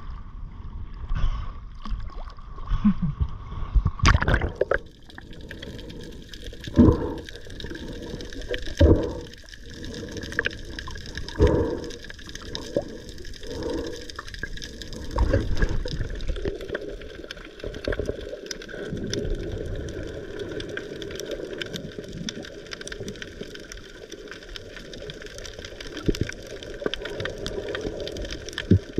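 Sea water sloshing around the camera at the surface, then from about four seconds in the muffled rushing of water heard underwater, with a series of low whooshes every second or two that give way to a steady underwater hiss.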